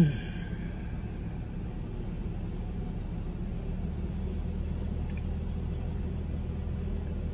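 Steady low hum of an idling car, heard from inside the cabin.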